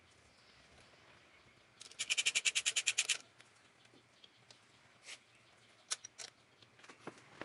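Ratchet wrench clicking rapidly, about a dozen clicks in just over a second, while loosening the camshaft bearing-cap nuts on a BMW M44 engine, followed by a few single light metallic clicks.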